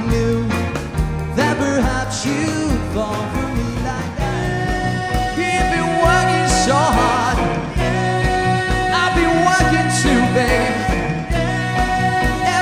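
Rock and roll band music: electric guitars and drums with a steady beat, and male singing.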